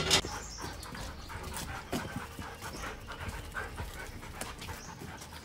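Two Belgian Malinois panting and scrabbling as they are led out on leashes, eager after days shut in a kennel, with a chain leash rattling in short irregular clinks. A loud clatter comes right at the start.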